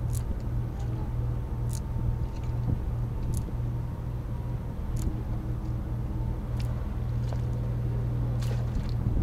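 Steady low engine hum, as of an engine idling, with faint short high ticks about every second and a half.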